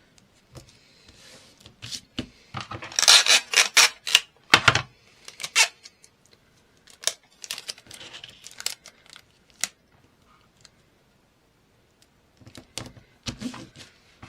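Sticky tape being pulled off the roll and torn off, in several bouts with short noisy rips and sharp clicks, alongside paper and card being handled.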